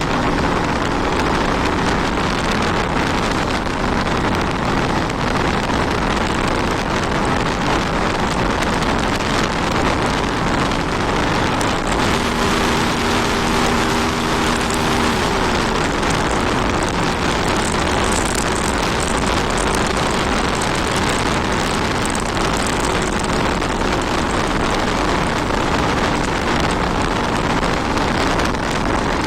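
Steady wind rush over the microphone while riding a Honda 160 motorcycle, with the engine's hum underneath. A stronger steady tone joins in for a few seconds about halfway through.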